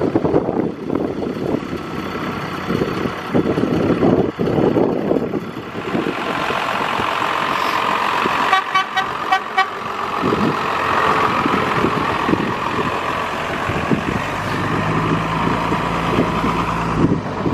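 Street traffic with wind buffeting the microphone. About halfway through, a vehicle horn toots in a quick run of short beeps, and near the end a heavy vehicle's engine hums low and steady.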